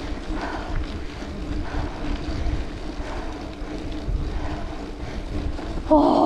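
Wind rumbling on the camera microphone of a mountain biker riding up a dirt forest road, with the rider's hard, regular breathing. A short, loud voiced sound comes near the end.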